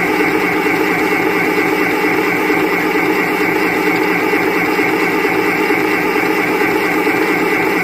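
Singer M1005 electric sewing machine's small motor running steadily at speed, winding thread onto the bobbin.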